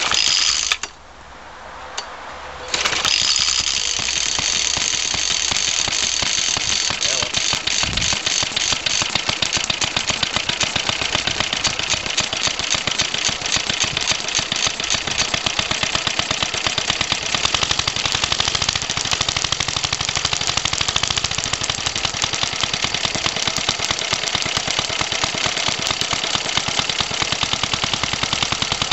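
A cold 75cc Suffolk two-stroke stationary engine driving a small air compressor: a short burst of firing dies away, then it catches about three seconds in and runs steadily with a fast, even beat.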